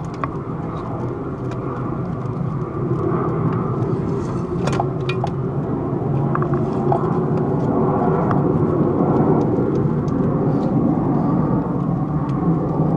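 A steady low rumble that grows slowly louder, with a few light clicks and knocks of parts being handled as the water pump pickup tube is pushed into place in the engine bay.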